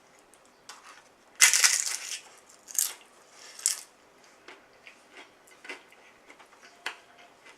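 Crunching of crisp food being bitten and chewed close to the microphone: one loud crunch about a second and a half in, two shorter crunches after it, then faint small clicks of chewing.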